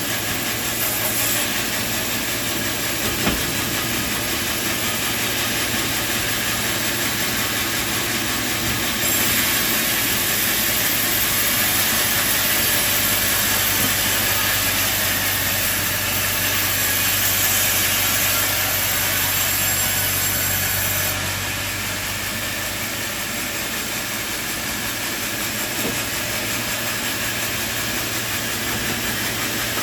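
Sawmill machinery running steadily, with a louder, hissier stretch of about twelve seconds in the middle as the saw cuts through timber.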